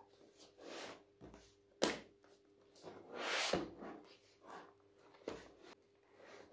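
Cardboard product box being handled and opened: rustling and scraping of the cardboard, with a sharp knock a little under two seconds in and a longer scrape a second or so later.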